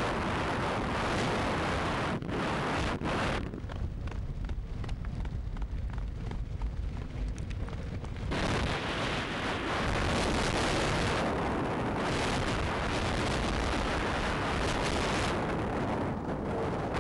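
Wind buffeting the microphone of a camera riding on a fast-moving dog-racing rig, over the rumble of its wheels rolling on asphalt. The rushing eases for a few seconds in the first half and then comes back louder.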